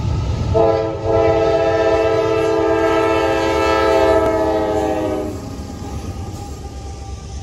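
A diesel freight locomotive's multi-chime air horn sounds one long chord of about five seconds as the lead units pass close by, its pitch sagging slightly near the end. Under and after it runs the heavy rumble of the engines and the wheels of the double-stack container cars.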